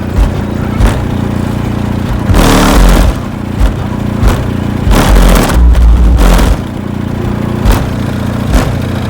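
Rap beat played loud through a Skar Audio car subwoofer system: long, heavy bass hits with sharp drum strikes between them and no vocals.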